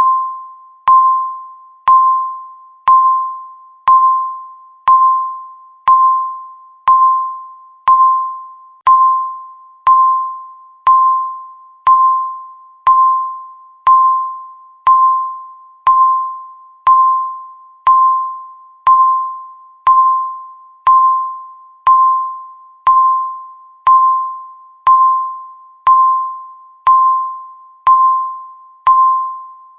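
Countdown timer beeping once every second: the same single high electronic beep each time, struck sharply and fading away before the next.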